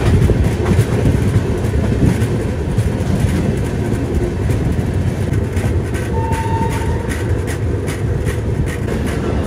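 Passenger train coach running along the track, heard from an open door with wind noise: a steady low rumble with wheels clicking over rail joints and points, the clicks coming more often toward the end as the train runs into a station. A short high whine is heard about six seconds in.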